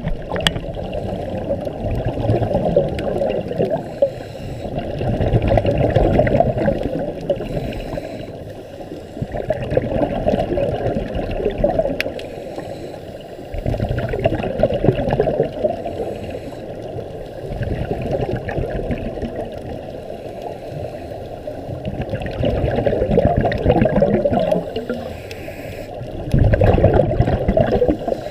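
Muffled underwater rush and gurgle of scuba exhaust bubbles from a diver's regulator, swelling and fading about every four seconds with each breath.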